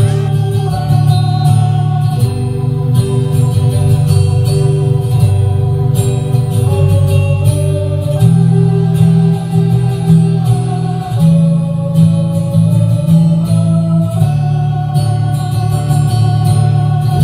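Pop song backing track with guitar and long held melody notes, played loud through a small mixer and PA speakers for a vocal test.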